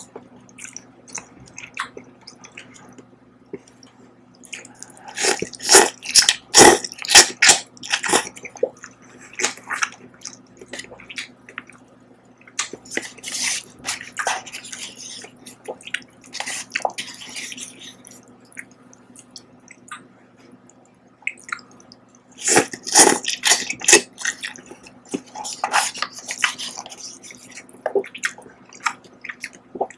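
Close, wet slurping of sauce-coated instant noodles eaten with chopsticks. It comes in three loud spells of rapid sucking and smacking, with quieter wet mouth sounds between.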